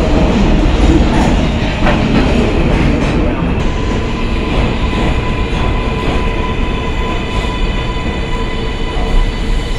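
New York City subway train running along the platform, its wheels clacking over rail joints about once a second. From about three and a half seconds in, a steady high whine joins the rumble.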